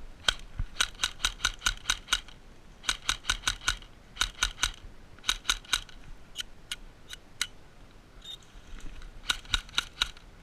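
Airsoft rifle firing in short strings of sharp shots, about five a second, with gaps between strings and a few single shots in the middle.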